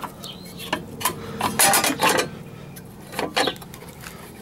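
Metallic clicks and clatter from an air-conditioner's outdoor pull-out disconnect being handled: the disconnect block pushed back into its box and the cover shut. There are several sharp clicks, the loudest cluster about two seconds in.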